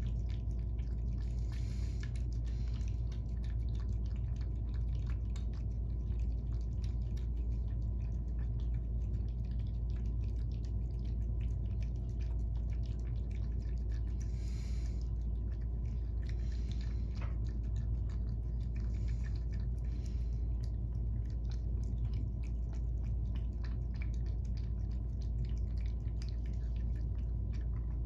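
Two cats eating wet cat food from bowls: steady close-up chewing and smacking with many small ticks of teeth and tongue, a few short bursts of wetter lapping, all over a constant low hum.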